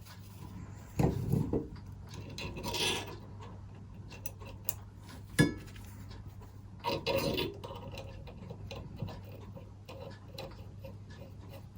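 Hand-work on bicycle parts: intermittent rubbing and scraping with a sharp click about five seconds in, over a low steady hum.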